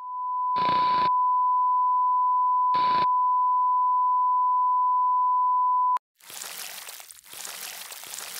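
Test-pattern tone sound effect: a steady, high beep with two short crackles of static over it. About six seconds in it cuts off abruptly, and a rough static hiss follows in uneven patches.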